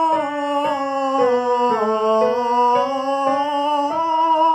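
A man singing a vocal warm-up on a sustained open vowel, his pitch stepping down and then back up, while an electronic keyboard plays a chord under each step, a little under two chords a second.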